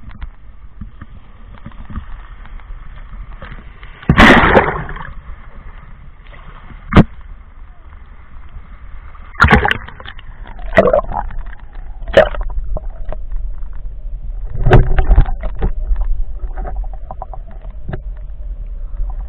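Sea water sloshing and splashing around a handheld camera as it is dipped in and out of the shallows and then held underwater, with a loud splash about four seconds in. Sharp knocks of the camera body being handled run through it over a low muffled rumble.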